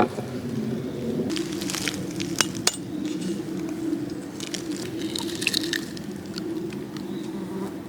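Kitchen utensils clinking and scraping against a glass dish in short scattered bouts, over a steady low hum.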